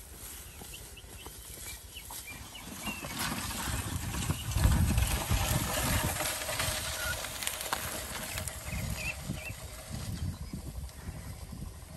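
A bundle of green bamboo poles dragged along a dirt path, scraping and rustling over the ground with the puller's footsteps. It grows louder as it passes close, loudest about five seconds in, then fades as it moves away. Faint bird chirps are heard a few times.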